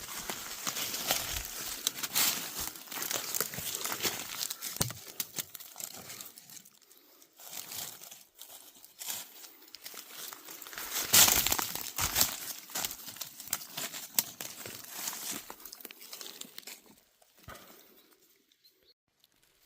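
Dry leaf litter crackling and rustling in irregular crunches, thinning out and falling almost quiet near the end.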